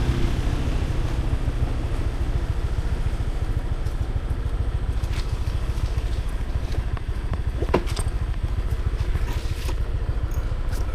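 A vehicle engine running with a steady low rumble, and a short click about eight seconds in.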